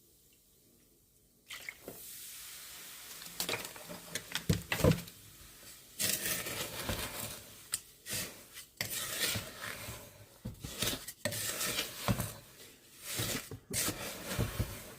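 Lemon juice fizzing into a powder of washing soda, borax and coarse salt: a steady hiss starts about a second and a half in. Then a wooden spoon stirs the damp, gritty mixture in a bowl, with irregular scraping and knocks against the bowl.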